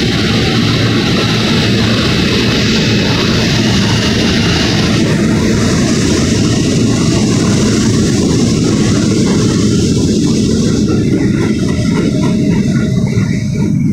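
R160 New York City subway train pulling out of the station along the platform: a loud, steady rumble of wheels and traction motors.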